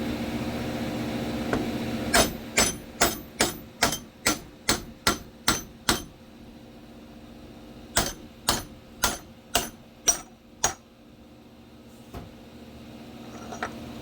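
Hammer blows on metal, each with a bright ring, driving an old idler pulley bearing out of its pulley. There is a quick series of about eleven strikes, a pause of about two seconds, then six more.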